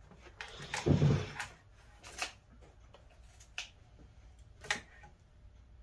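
Wooden drawer box being tipped over and set down on a workbench: a heavy thump with some scraping about a second in, then a few light wooden knocks as it is handled.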